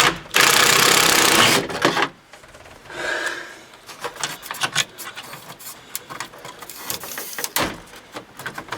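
A power tool runs loudly for just over a second, with a shorter burst about three seconds in, then irregular clicks and knocks of tools on metal as fasteners are worked loose.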